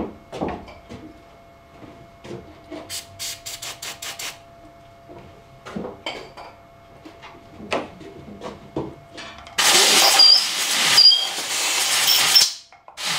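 A compressed-air blow gun gives a loud, steady blast of air for about three seconds near the end, blowing out the drilled stud holes of an aluminium oil housing. Before it come scattered clicks and knocks and a quick run of short hissing puffs.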